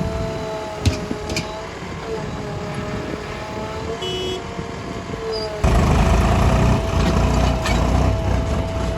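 Heavy machinery diesel engine running with a steady whine over a low rumble, with a couple of sharp knocks early on; a bit past halfway it abruptly becomes louder and rougher.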